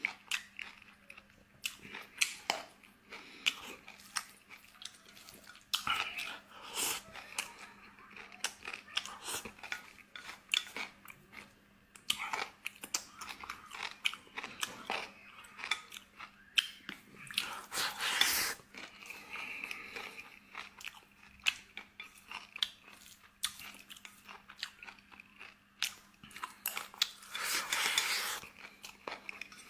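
Close-miked eating: a person chewing and biting tomato-braised pork ribs with rice, with many small crunchy clicks and wet mouth sounds. A faint steady hum runs underneath.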